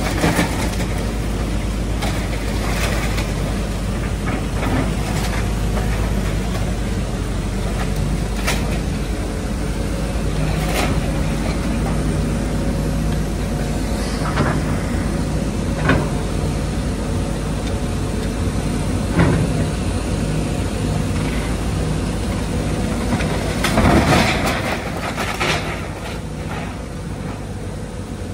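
Link-Belt 210X tracked excavator's diesel engine and hydraulics running steadily under load, with scattered sharp cracks and crashes of splintering timber and falling debris as the bucket tears down a wood-frame house. The loudest crash comes near the end.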